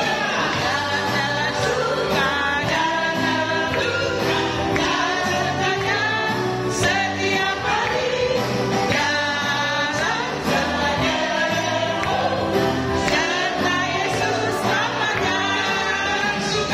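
Christian praise song: voices singing over backing music with a steady beat.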